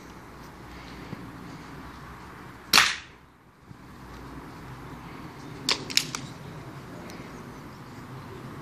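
A .22 break-barrel air rifle fires a pellet once, a single sharp crack about three seconds in. About three seconds later come two quick clicks as the rifle is broken open to be cocked and reloaded.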